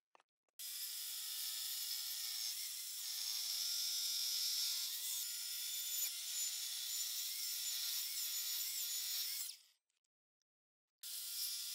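Electric mitre saw running and cutting through a wooden handle blank: a steady high whine with the hiss of sawing. It stops abruptly about ten seconds in and starts again just before the end.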